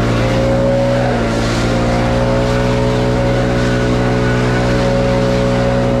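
Leaf blower running steadily, blowing leaves and twigs off stone steps; its pitch dips briefly about a second in.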